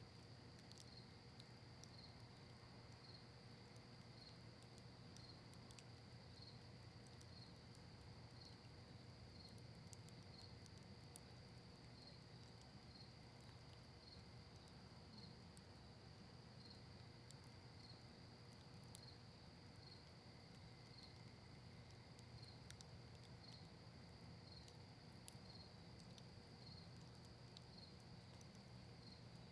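Faint campfire of cedar and maple wood crackling with sparse small pops, over a steady high insect trill that pulses about once a second.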